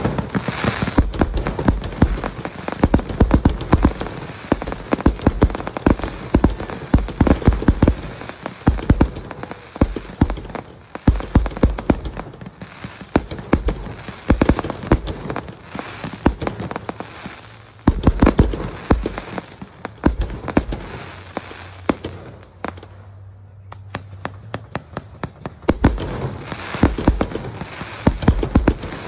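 Fireworks going off: a dense, rapid crackle of many small pops, with heavier booms among them. The crackling thins out briefly about three-quarters of the way in, then picks up again.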